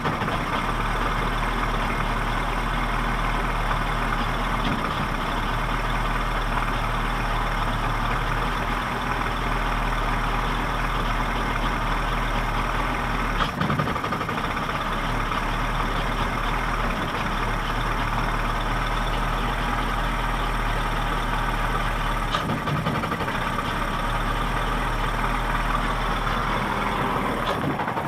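1979 Johnson 55 two-cylinder two-stroke outboard motor idling roughly, its low running note dropping out briefly every few seconds.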